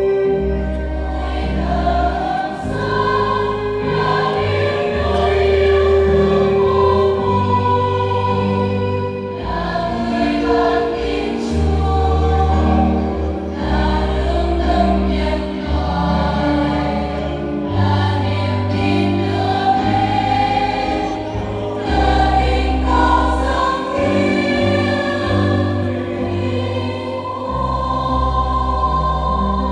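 A choir singing a church hymn with instrumental accompaniment, held low bass notes changing every couple of seconds.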